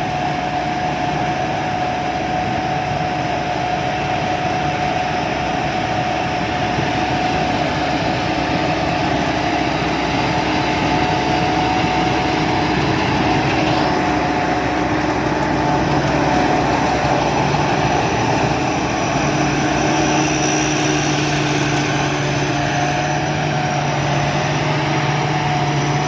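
Sakpattana combine harvester running steadily while harvesting rice: engine and threshing machinery with a constant whine above them, and a deeper hum that grows louder about two thirds of the way through.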